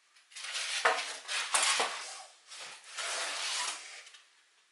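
Styrofoam packing pieces being pulled out of a cardboard box, scraping and rubbing in three bursts, with a couple of sharp knocks in the first two seconds.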